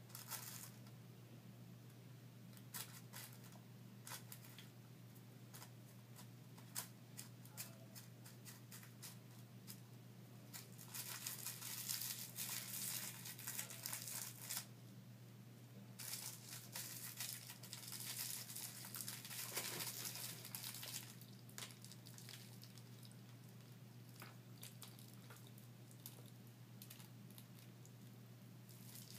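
Fingers crinkling and rustling a rolling paper and crumbling dry herb while rolling a joint: scattered small clicks, with two longer spells of crackling in the middle, over a steady low hum.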